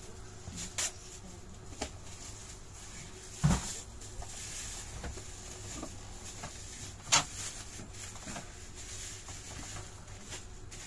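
Kitchen handling noises: a few scattered knocks and clicks as containers are moved and a fridge is opened, the loudest knock about three and a half seconds in, over a faint steady low hum.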